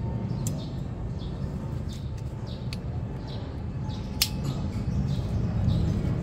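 A small bird chirps again and again over a steady low rumble, with a few sharp metallic clicks from a ratchet wrench working the oil filter cover bolts on a motorcycle engine. The loudest click comes a little after four seconds in.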